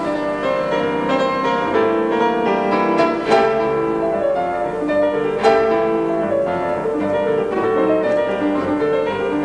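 Classical piano music of slow, sustained notes and chords, with firmer struck chords about three and five and a half seconds in.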